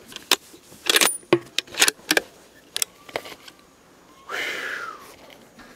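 Handling clatter from gear and clothing right against the microphone: a run of sharp clicks and small rattles over the first three seconds. About four seconds in there is a short hissing rush that falls in pitch.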